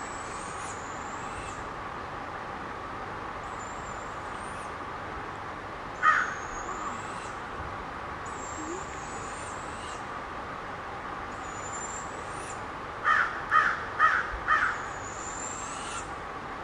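Crows cawing: one caw about six seconds in and a run of four near the end, over a high, thin call that repeats every second or two.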